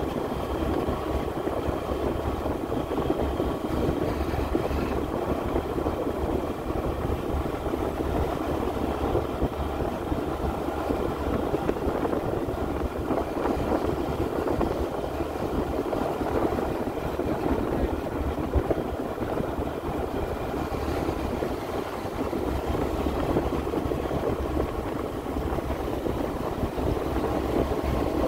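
Engine of a road vehicle running steadily while it drives slowly along a road, with a low hum and road noise.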